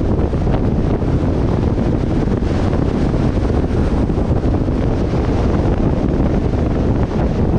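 Steady wind buffeting the microphone over the road noise of a car driving at speed, heaviest in the low rumble.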